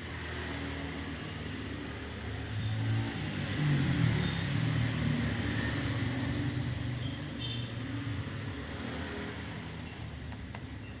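A motor vehicle's engine running close by, growing louder to its peak about four seconds in and then slowly fading, like a vehicle passing. A few faint clicks sound along with it.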